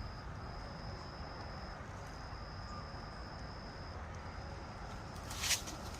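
An insect trilling in a steady high thin tone, in long stretches with short breaks, over low outdoor rumble. A sharp click about five and a half seconds in.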